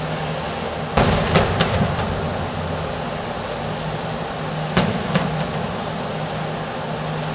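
Aerial fireworks shells bursting in the distance: four sharp bangs close together about a second in, then two more a little before five seconds, over a steady low hum.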